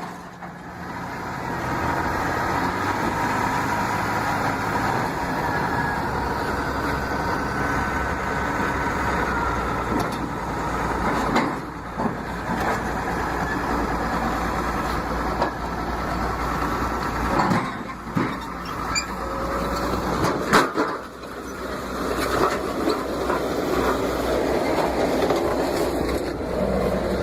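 Heavy diesel equipment, such as a bulldozer being unloaded, running steadily, with several sharp knocks about halfway through and later.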